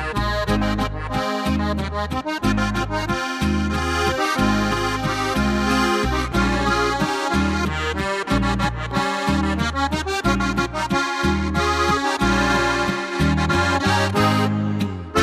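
Slovenian folk-pop music in the Oberkrainer style: an accordion plays the melody over a bass line bouncing on the beat.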